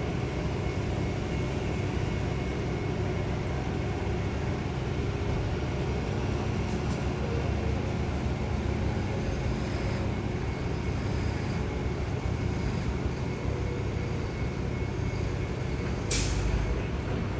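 Construction-site and traffic ambience: a steady low rumble of heavy engines, with a short sharp hiss near the end.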